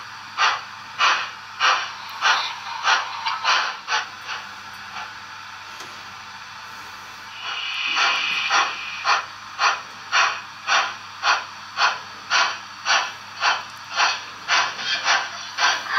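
Märklin model steam locomotive's sound decoder playing steam chuffs at a steady beat of about two a second. The chuffs drop away for a few seconds after about four seconds in. They return behind a rush of steam hiss near the middle.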